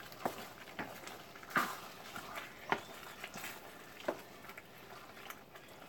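Wooden spatula scraping and knocking against a wok as a chicken-and-shrimp stir-fry is tossed: short irregular scrapes every half second to a second over a faint sizzle.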